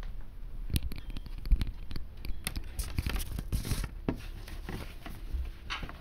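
Handling noise close to the microphone: a run of irregular clicks, knocks and short scrapes as a hand works at the webcam or computer, with one louder knock about a second and a half in.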